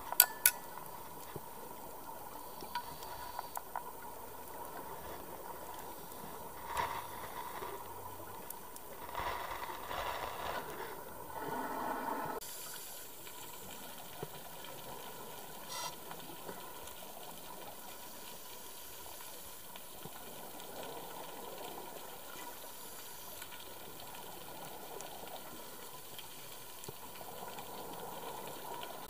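Underwater recording on a scuba dive: a steady hiss with a faint constant tone, broken by a few surges of scuba exhaust bubbles, the longest around ten seconds in. A sharp click near the start and another about sixteen seconds in.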